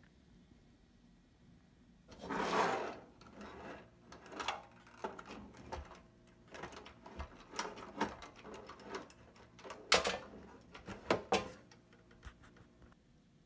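Metal suspension arms, spindles and coil-over shocks of a model RC snowmobile being handled and flexed: a short rustling scrape about two seconds in, then an irregular run of light clicks and knocks, with a few sharper knocks near the end.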